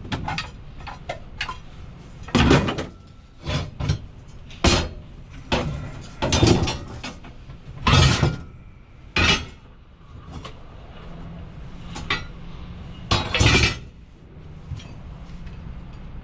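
Pieces of scrap metal being thrown down one after another, clanking and clinking at an irregular pace, about a dozen hits with a few much louder crashes.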